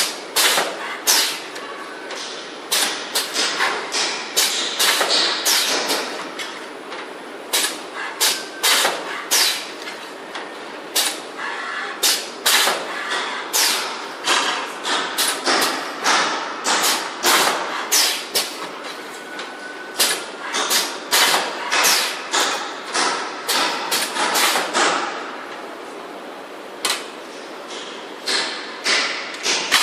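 CNC tube bending machine for tubular heating elements working through its bending cycles: a fast, uneven series of sharp mechanical clacks and knocks, about two a second, with a brief lull about three-quarters of the way through.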